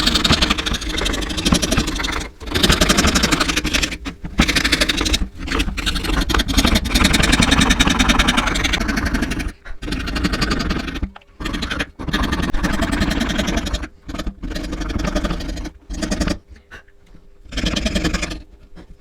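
A small electric power tool running as it works wood, with a fast buzzing rhythm, cut off briefly several times.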